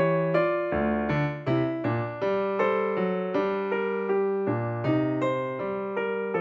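Background music on a piano-type keyboard. Notes are struck at a steady pace of about two a second, and each one fades as the next comes in.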